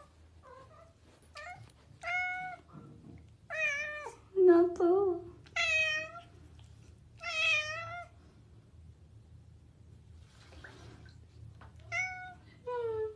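Domestic cat meowing over and over: a run of five or six short, plaintive meows, then a pause of about four seconds, then two more near the end.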